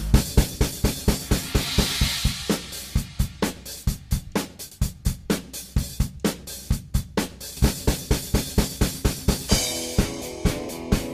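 Background music: a fast drum-kit beat of bass drum, snare and cymbals at about four hits a second, with a cymbal wash about two seconds in and sustained instrument tones coming in near the end.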